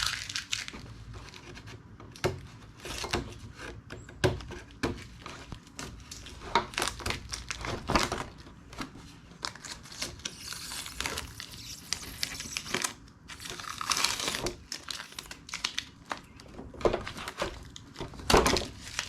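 Masking tape and cured Plasti Dip rubber coating being peeled off a plastic wheel aero cover: irregular crinkling and tearing, with the edge of the coating pulling a little.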